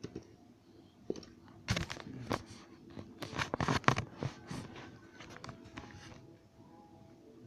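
Irregular clicks and crackling handling noises, densest about two to four seconds in, then a few scattered clicks.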